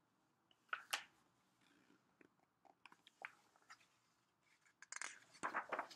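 Page of a hardcover picture book being turned and pressed flat by hand: soft paper rustles and light clicks, with a burst about a second in and more near the end.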